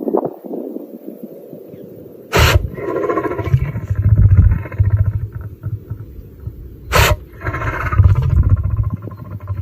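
Lion sneezing twice: two sharp, explosive bursts about four and a half seconds apart, each followed by a brief tonal trail. Low rumbling noise runs on after the first sneeze.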